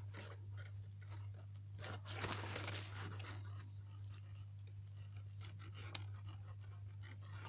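Quiet eating of fried chicken wings: chewing and small crunches, with crackling of the paper bag and a burst of paper rustling a little over two seconds in, over a steady low hum.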